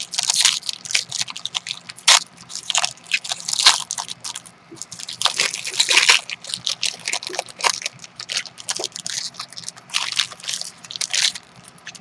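Trading card packaging crinkling and tearing as it is opened by hand, a dense run of irregular sharp crackles and rustles.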